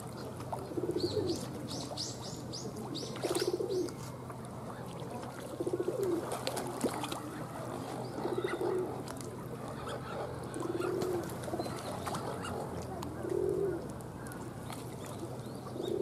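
A pigeon cooing: a low, throaty coo that repeats every two seconds or so. A quick run of high chirps comes about a second in.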